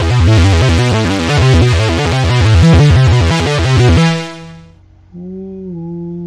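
Synthesizer playing a fast, loud rock riff over a pulsing bass line, stopping about four seconds in. About a second later a man begins humming a held note that steps up and down slightly in pitch.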